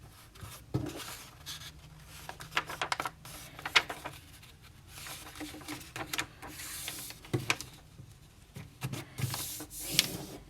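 A sheet of printer paper being handled and folded in half, rustling and rubbing as the fold is pressed flat, with a few sharp crackles of the paper.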